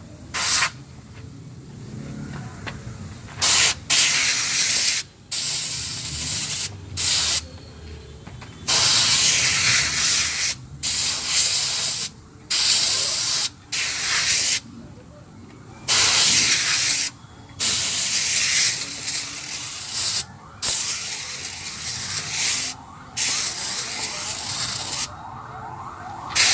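Compressed-air blow gun hissing as it blows dust out of a ten-wheeler truck's air filter element, in a long series of blasts that stop and start every second or few seconds.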